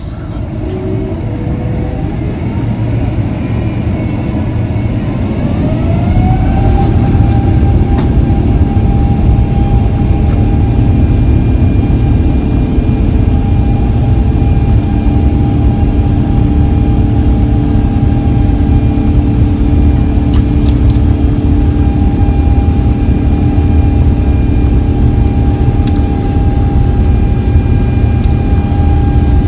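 Airbus A350's Rolls-Royce Trent XWB turbofan engines spooling up for takeoff, heard from inside the cabin. The engine whine rises in pitch and grows louder over the first several seconds, then holds at a steady high pitch over a heavy rumble at takeoff power during the roll.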